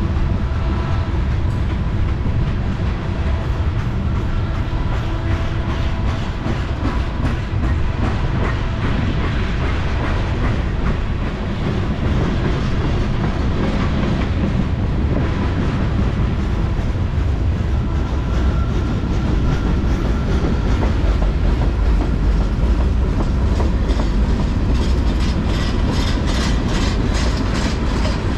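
Freight train of tank cars rolling past: steel wheels clicking rhythmically over the rail joints above a steady, loud rumble. A faint high ringing comes and goes, and the clicks grow more distinct near the end.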